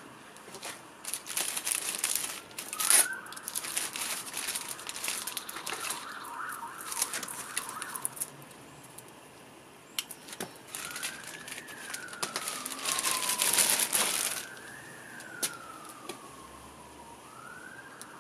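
Thin plastic bag crinkling and rustling in bursts as it is handled and pulled off. Underneath, a fainter siren wails, its pitch sliding slowly up and down, through the second half.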